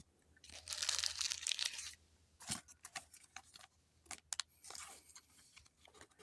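A foil booster pack wrapper torn open in one long rip, followed by scattered crinkles and sharp clicks as the wrapper and cards are handled.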